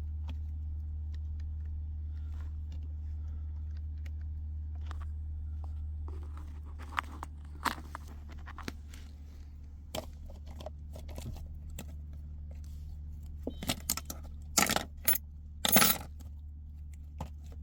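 Steady low hum in a truck cab, dropping slightly about six seconds in, under scattered light clicks and rattles of small hard objects being handled. The loudest is a cluster of sharp clicks near the end.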